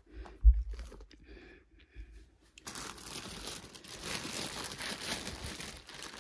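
A low thump about half a second in, then from about two and a half seconds in, steady crinkling of clear plastic wrapping as a bagged handbag is picked up and handled.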